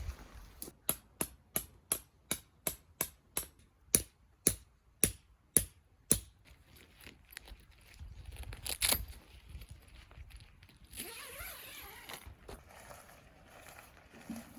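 A quick run of sharp knocks, about three a second, roughly fifteen in all, with the last few louder. A short louder clatter follows a few seconds later.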